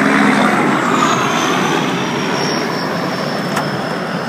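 Logging truck driving past close by and pulling away, its engine and tyre noise slowly fading, with a faint high whine that slowly drops in pitch.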